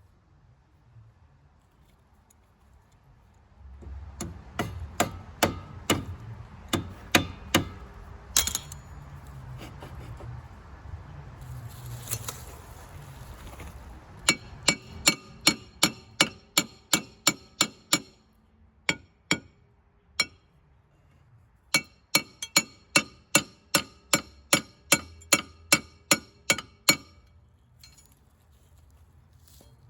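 Hammer tapping on metal in three runs of about two to three ringing strikes a second.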